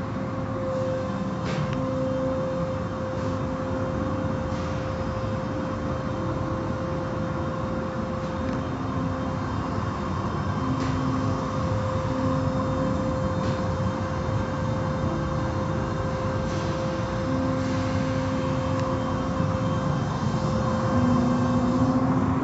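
Automatic tunnel car wash at work: a steady rush of water spray and spinning cloth brushes over a constant machinery hum.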